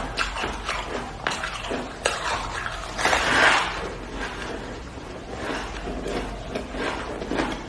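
Close-up crunching and chewing of a chunk of packed shaved ice in the mouth: a run of fine crackling crunches, with a louder crunch about three seconds in, then quieter chewing.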